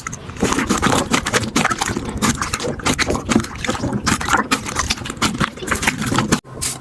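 Slime being squished and poked by hand, a dense run of wet crackles and pops, broken by a sudden short gap near the end.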